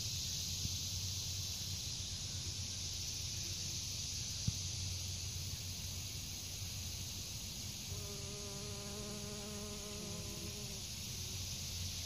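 Steady high-pitched insect chorus, with a bee's buzzing hum close by for about three seconds near the end as it flies off the flower.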